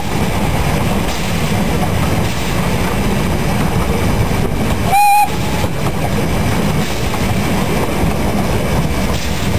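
Narrow-gauge steam locomotive 99 6101 running along the track, a steady low rumble heard from on board, with one short blast of its steam whistle about five seconds in.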